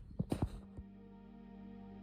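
Ambient outro music begins: a few sharp plucked strokes, then a steady held chord.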